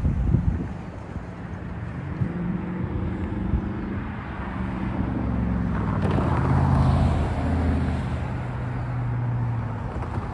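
Road traffic crossing the railway: cars and a pickup truck driving past, engine hum and tyre noise swelling as a vehicle passes close about six seconds in, with a few sharp knocks.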